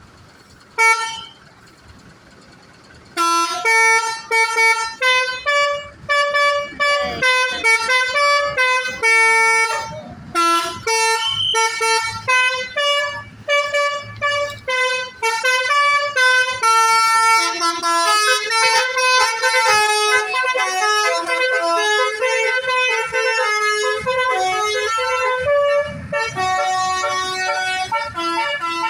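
Bus basuri telolet horn, a multi-trumpet musical horn, playing a tune of short stepped notes. There is one short blast about a second in, then a pause. From about three seconds on a long run of notes follows, growing denser and overlapping in the second half.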